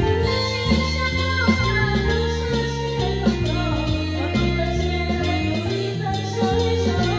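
Theatre accompaniment music, with a bass line stepping from note to note in an even rhythm under a sustained melody.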